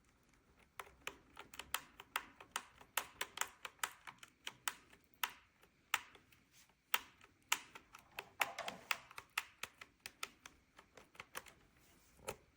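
Typing on a TMKB T61SE compact mechanical keyboard with red linear switches: an irregular run of key clacks, several a second, starting about a second in.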